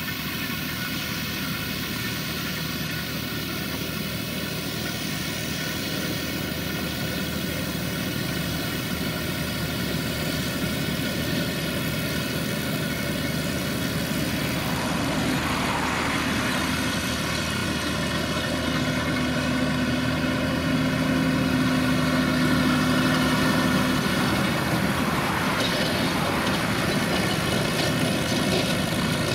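Valtra tractor's diesel engine running steadily under load while it pulls and drives a Krone V 150 XC round baler that is picking up a windrow of grass. The sound grows gradually louder.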